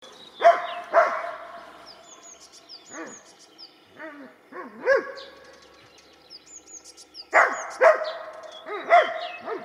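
Dog barking up into the trees at a squirrel (squirrel barking, as in tree-barking hunting): loud single barks, two close together near the start, a few scattered through the middle with a quick run of yips, then a cluster of three or four near the end, each ringing on briefly. Small birds chirp faintly between the barks.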